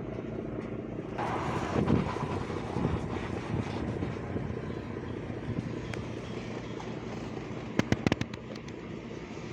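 A ship's engine running with a steady low drone as the vessel gets under way from the dock, with a quick cluster of sharp clicks about eight seconds in.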